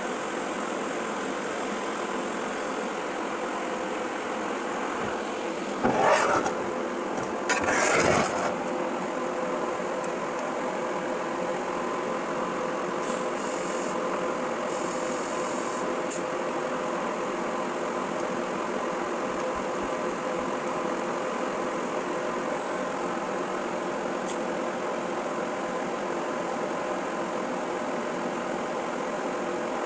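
Steady machine hum carrying a few steady tones, broken about six and eight seconds in by two short, louder noisy bursts.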